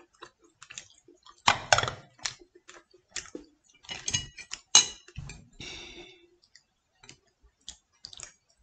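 Tableware clattering on a table: a loud knock about one and a half seconds in, then utensils clinking against a dish near the middle, with small clicks from eating in between.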